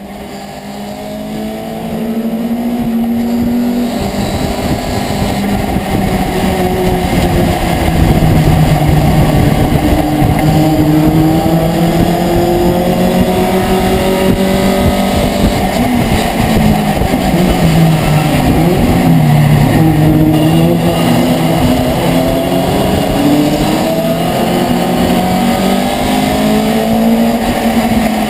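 Racing pickup truck's engine heard from inside the cab, running hard under acceleration, its pitch climbing and dropping back again and again with gear changes and braking. The sound swells up over the first few seconds.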